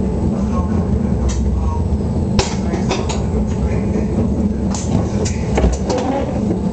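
Train running through a yard's points, heard from inside the cab: a steady low rumble with sharp clacks as the wheels cross the switches, several in quick succession near the end.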